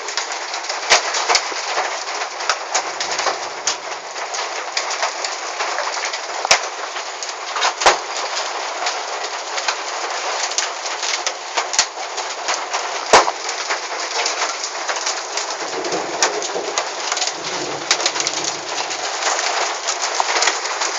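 Hail and rain pelting down: a steady dense hiss with frequent sharp cracks of individual hailstones striking hard surfaces.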